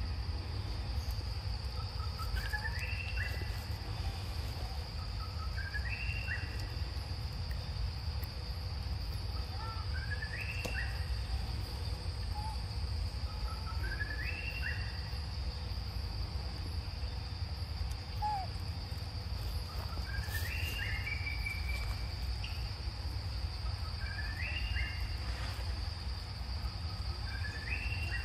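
Evening insect chorus: a steady high drone, with a bird repeating a short rising call about every two seconds over a low background rumble.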